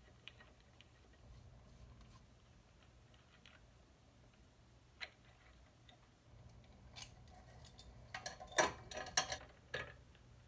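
Small metal parts of a mini-bike carburetor and its throttle cable clicking and rattling as they are handled and pulled apart by hand. There is a single sharp click about five seconds in, then a quick run of louder clicks and rattles near the end.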